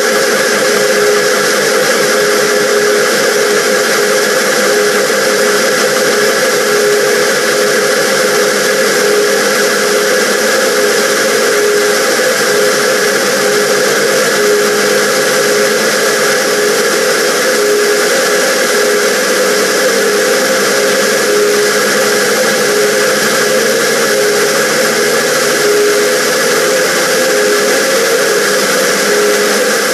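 Chain of emoji meme sound effects (nerd, yawn and baby sounds) looped hundreds of times at high speed, so the clips blur into one dense, steady drone like an emergency alarm, with a tone that pulses evenly through it.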